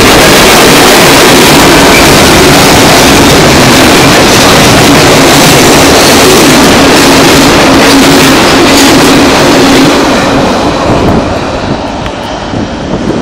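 A CSX freight train's cars rolling past at close range: loud, steady wheel-on-rail noise with occasional clicks. It drops in level about ten seconds in as the train moves off.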